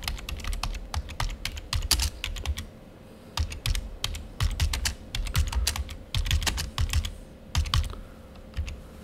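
Typing on a computer keyboard: quick runs of key clicks, with a short pause about three seconds in, stopping shortly before the end.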